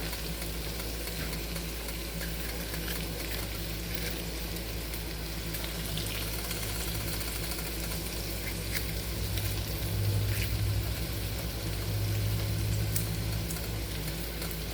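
Food sizzling in a pan on the stove, with a few faint clicks over a steady low hum; the hum grows louder about ten seconds in and eases off near the end.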